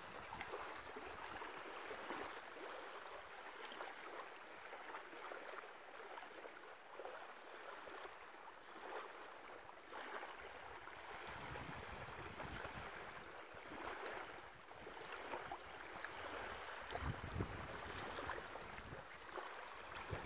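Small waves lapping and washing on a sandy shore, a soft steady wash. Wind buffets the microphone in low rumbles about halfway through and again near the end.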